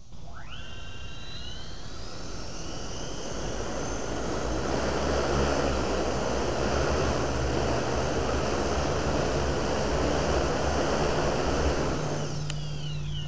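Large octocopter's eight T-motor U8II brushless motors with 28-inch carbon-fibre propellers spinning up with a rising whine when armed, then running with a heavy rush of propeller wash that grows louder a few seconds in as the throttle comes up. Near the end the motors wind down with a falling whine.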